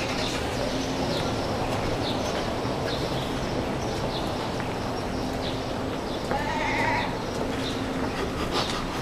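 Outdoor street noise: a steady low hum under a noisy haze, with scattered short sounds and one long, high shouted call about six and a half seconds in.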